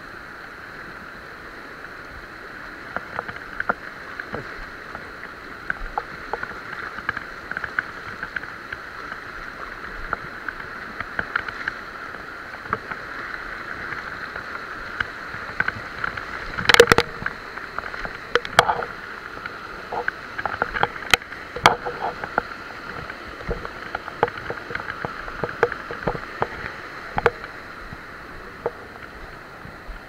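Monsoon stream water rushing steadily over rocks, with scattered sharp taps and knocks; the loudest knock comes about halfway through.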